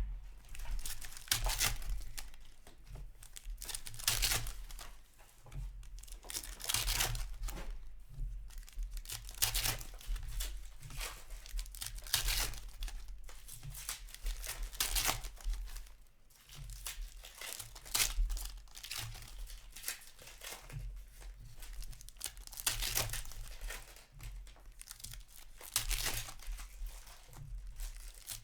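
Hockey card packs being torn open one after another, their wrappers ripping and crinkling in repeated irregular bursts.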